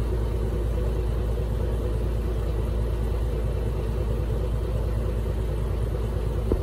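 Small boat's engine running steadily at low revs.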